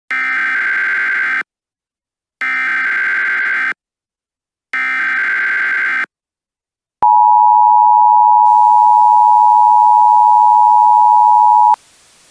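Emergency Alert System header: three bursts of SAME digital data tones, each about a second and a half long with short silences between. About seven seconds in comes the steady two-tone EAS attention signal, held for nearly five seconds, which leaves a faint hiss when it cuts off.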